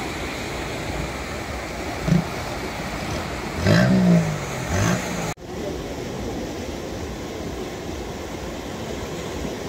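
Steady rush of the swollen Ganga flowing fast. About four seconds in comes a brief, loud pitched sound that rises and falls. The sound cuts out for an instant just after five seconds, then the rush resumes.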